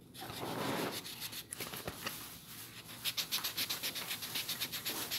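A pencil eraser rubbed back and forth over pastel marks on paper. It starts soft and uneven, then from about three seconds in turns to quick, regular strokes, about six a second.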